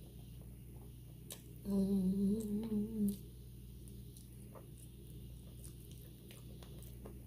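A woman humming a closed-mouth "mmm" while chewing, wavering in pitch, for about a second and a half starting near two seconds in. A few faint clicks of eating around it.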